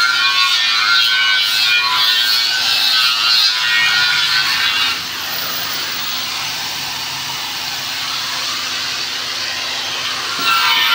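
Air spray gun hissing steadily as it sprays paint. Background music plays over it at first, drops out about five seconds in, and comes back near the end.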